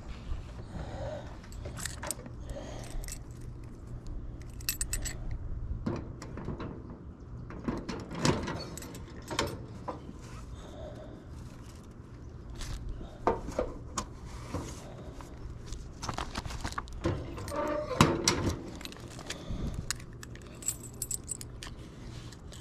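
Keys jangling, with scattered metallic clicks and knocks, as a cluster mailbox compartment is unlocked and opened and the mail taken out.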